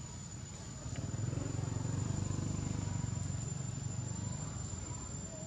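Steady high-pitched drone of an insect, with a low rumble that swells about a second in and fades toward the end.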